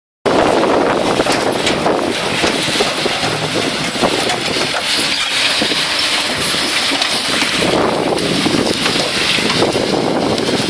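Heavy machinery running: a tracked excavator working a pile of broken concrete rubble, with mobile screening plants behind it. Strong wind buffets the microphone throughout, and small knocks and scrapes of rubble come through.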